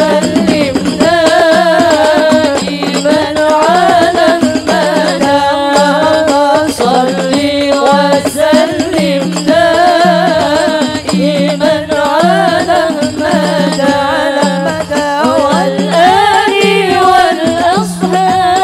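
Women singing a devotional sholawat into microphones, backed by percussion keeping a steady beat of about one pulse a second.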